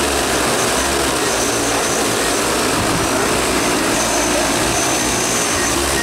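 DJI six-rotor agricultural spray drone hovering just after lift-off, its propellers running steadily and loudly.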